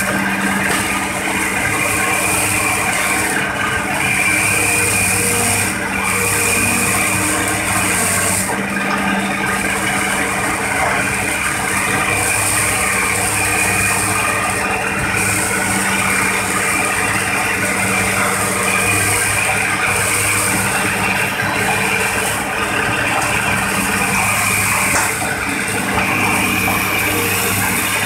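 Hitachi crawler excavator's diesel engine running steadily under close microphone, with a high hydraulic whine as the boom and bucket work in the swamp mud.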